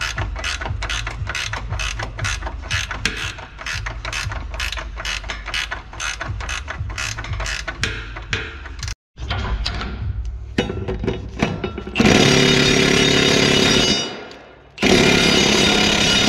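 Hand ratchet wrench clicking steadily, about four clicks a second, as a suspension bolt is turned. After a short break come two loud bursts, about two seconds each, of a power tool running.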